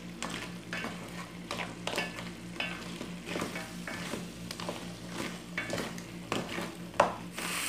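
A utensil stirring and scraping thick crab masala in a frying pan, about two strokes a second, over a light sizzle as the crab roast finishes cooking with freshly added curry leaves. A sharper knock comes about seven seconds in, then a steady hiss takes over near the end.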